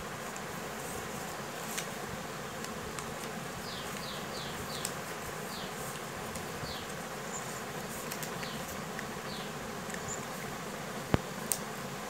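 Lined paper being folded and creased by hand on a hardbound diary cover: faint rustles over steady background noise, with a few faint high chirps in the middle. A sharp click comes about a second before the end, followed by a smaller one.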